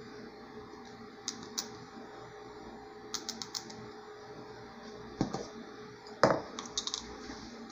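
Light clicks and taps of a plastic measuring scoop and container as baking powder is measured into cake batter, in small clusters, with two louder knocks in the second half, the loudest about six seconds in.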